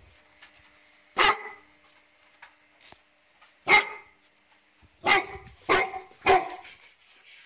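Newfoundland dog barking at an animal out on the deck: two loud barks a few seconds apart, then three in quick succession about half a second apart.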